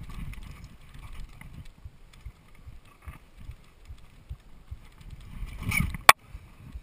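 Mountain bike clattering over roots and rocks on a trail: a constant run of small knocks and rattles. It swells near the end as the bike brakes to a halt, then gives one sharp knock.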